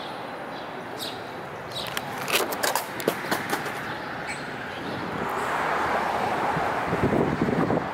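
City street ambience: a steady hum of traffic that swells in the second half, with a run of sharp clicks and scrapes in the first half.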